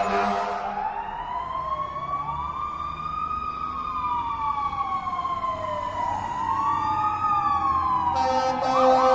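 Police car siren in wail mode: slow, overlapping tones sweeping up and down in pitch over a few seconds each. The tail of a loud horn blast dies away at the start, and near the end the siren switches to a fast yelp over a steady tone.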